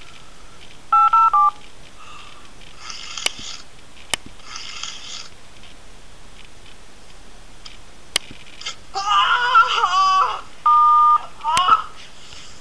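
A man's pained cry, wavering in pitch, about three-quarters of the way through, with hissy bursts and a few sharp clicks earlier on. Telephone keypad beeps are laid over it: three short beeps about a second in and one longer tone near the end.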